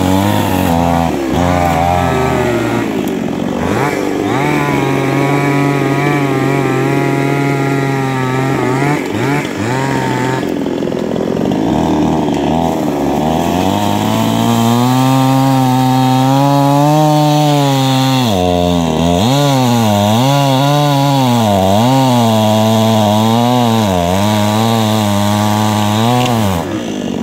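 Two-stroke chainsaw running, steady at first, then revving up and down every second or two in the second half, as when it works through wood.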